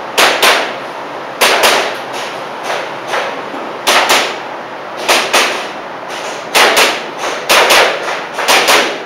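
Airsoft pistol firing a string of shots, mostly in quick pairs (double taps) with about a second between pairs.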